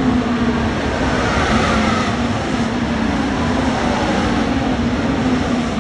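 Racing cars running on the circuit, loud and steady, with engine notes sliding down in pitch as cars pass.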